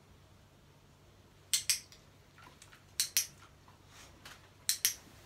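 Handheld dog-training clicker clicked three times, about a second and a half apart, each a sharp double click. The clicks mark the dog's correct response in clicker training.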